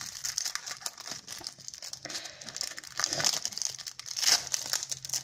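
Plastic wrapping of a card deck crinkling as it is handled and pulled open: irregular crackling with louder spells about three and four seconds in.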